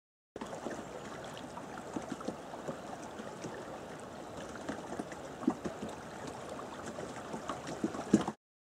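Fast, broken river water rushing over rocks: a steady wash with many small splashes. It starts and cuts off suddenly.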